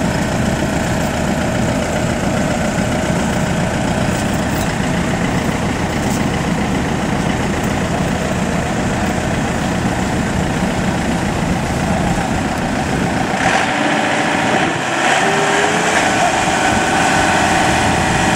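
Diesel engines of Kubota rice combine harvesters running steadily. About two-thirds of the way through the engine note shifts and rises a little.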